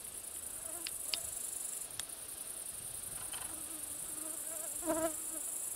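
Meadow insects chirring in a steady, high, fast-pulsing drone. A flying insect buzzes close by now and then, loudest about five seconds in, with a few faint clicks.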